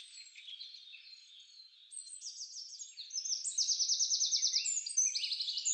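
Wild songbirds singing: faint at first, then several fast, high trills of rapidly repeated notes from about two seconds in, the loudest in the second half.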